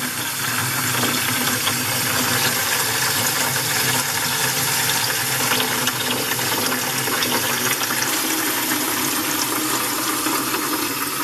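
Water rushing steadily from a braided stainless faucet supply hose into a plastic bucket already holding water: the supply line is being flushed to clear out scale and debris.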